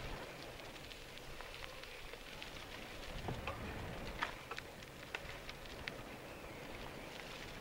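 Bicycle tyres rolling fast over a leaf-strewn dirt forest trail: a steady rustling noise with scattered sharp clicks, most of them between about three and five seconds in.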